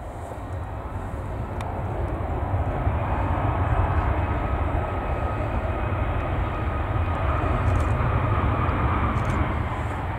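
Boeing 757 jet engines running at low power as the airliner taxis past: a low rumble with a steady whine, swelling as it approaches and easing slightly near the end.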